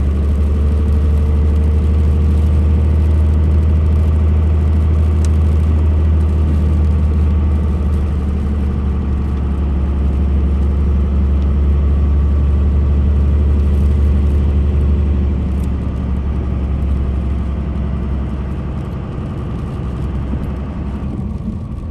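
2002 Dodge Ram 2500's 5.9 Cummins straight-six diesel pulling steadily with a deep drone, heard from inside the cab while driving. About fifteen seconds in, the drone drops and then slowly grows quieter.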